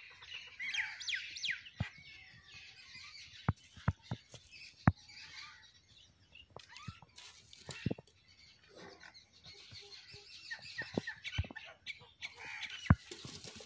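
Small birds chirping, with several sharp clicks or knocks scattered through, the loudest about five seconds in and near the end.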